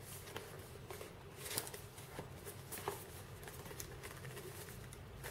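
Faint scattered taps and light scrapes of fingers handling a small cardboard product box, over a low steady hum of room tone.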